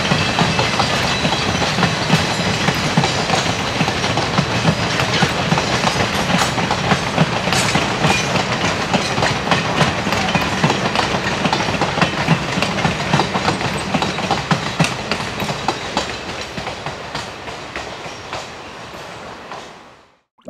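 Passenger coaches rolling past with their wheels clicking over the rail joints, a steady clickety-clack. It fades gradually and cuts out near the end.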